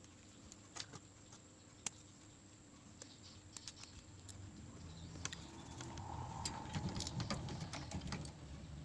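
Scattered light clicks and taps of small tools and phone parts being handled during a phone screen repair, growing busier, with a low rumble, in the second half.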